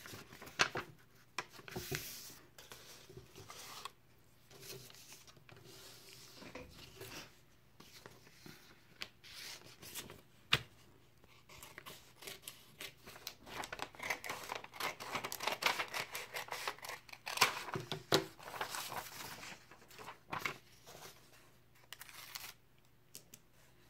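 Scissors snipping through a sheet of paper, with a quick run of snips past the middle and the paper rustling as it is handled, plus a few sharp clicks.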